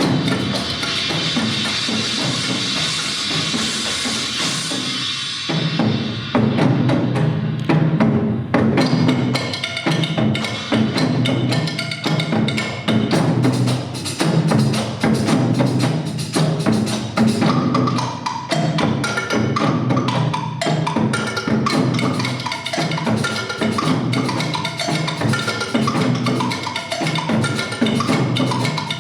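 Nanta ensemble drumming: sticks striking drums and drum rims in fast, dense rhythmic patterns with heavy low drum hits. A steady hissing wash opens the passage and gives way after about five seconds to the full drumming.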